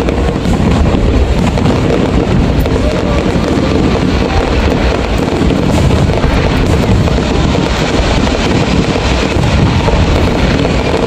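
Aerial fireworks shells bursting in quick succession, the bangs running together into a dense, continuous rumble.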